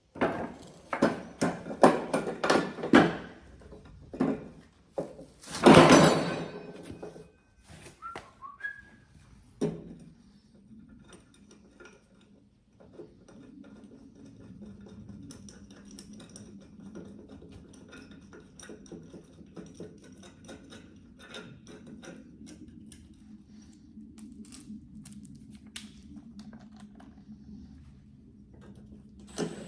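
Metal parts and tools knocking and clanking as a lawn mower deck is reassembled, with one louder, longer clatter about six seconds in and a short squeak soon after. From about ten seconds on there is a quieter steady low hum with scattered light ticks.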